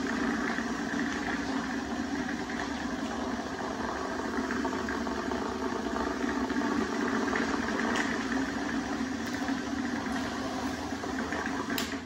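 Cadence Eros Turbo desk fan running steadily on a swapped-in propeller: a constant motor hum and rush of air from the blades. A sharp click comes just before the end, and the sound cuts off abruptly.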